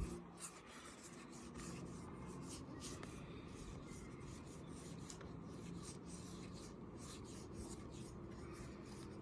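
Faint rubbing and sliding of trading cards being flipped through by hand, with a few light ticks over a steady low background hiss.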